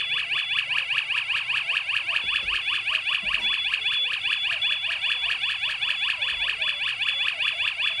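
Wireless strobe siren sounding its alarm, a loud, fast-repeating rising warble set off by the triggered smoke detector, with a high intermittent beep running over it.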